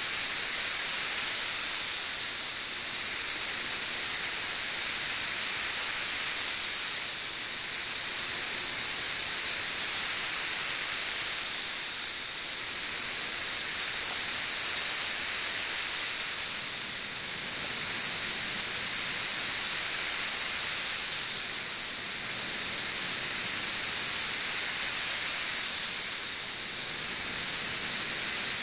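Massed chorus of 17-year periodical cicadas (Brood XIV): a loud, high-pitched, hiss-like drone that swells and eases slightly every four or five seconds.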